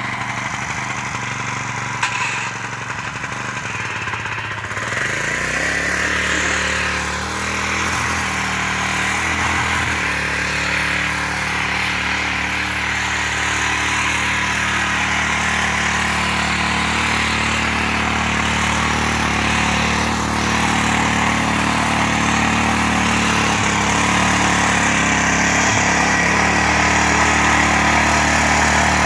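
Mitsubishi walk-behind rotary tiller's small engine running steadily as it churns garden soil. It gets louder about five seconds in and again near the end.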